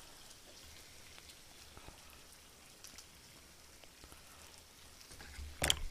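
Faint, even crackle of spicy chicken bulgogi sizzling on a grill plate, over a low hum, with a few faint ticks. A brief sharp sound comes near the end.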